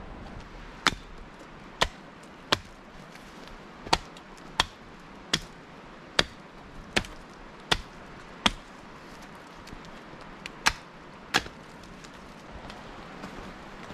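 A tool striking wood in a series of sharp blows, about one every three-quarters of a second, with a short pause before two final blows. The blows come from axe or hammer work on the camp shelter during repairs.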